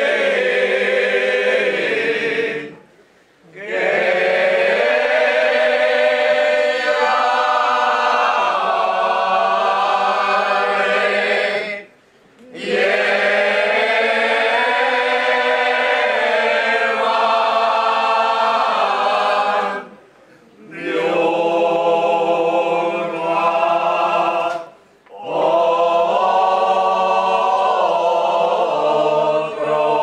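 Rosarieros, a mixed group of men and women, singing their coplas unaccompanied in long held phrases, with four short breaks for breath between lines.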